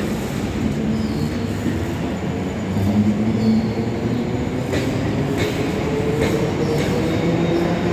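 Electric suburban train (EMU) pulling out and picking up speed: a steady rumble, with a motor whine that rises in pitch from about halfway in. Evenly spaced wheel clicks over the rail joints come in over the second half.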